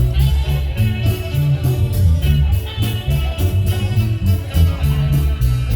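Marimba band playing upbeat Latin dance music, with a strong bass line and a steady percussion beat.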